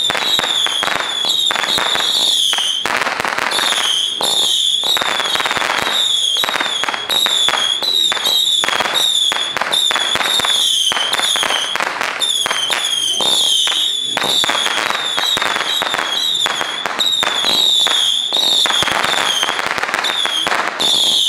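Original's Spanish Storm 750-shot whistle cake firing very fast: a near-continuous stream of shrill, wavering whistles, several a second, mixed with sharp pops.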